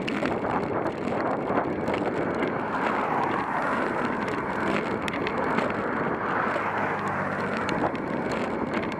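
Wind rushing over the microphone of a camera on a moving bicycle, with a pickup truck overtaking close alongside; the truck's engine hum comes through near the end.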